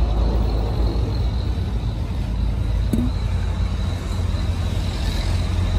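Steady low rumble, with a single sharp click about three seconds in.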